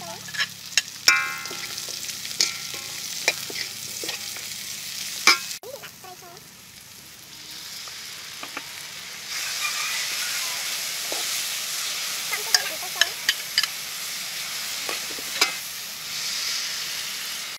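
Sliced onions sizzling in hot oil in a steel wok while a metal spatula stir-fries them, scraping and knocking against the pan. The sizzle grows louder about halfway through.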